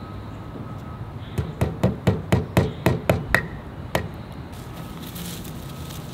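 Hammer striking into a wooden mailbox post: a quick run of about ten blows, roughly four a second, starting about a second and a half in, the last one after a short pause.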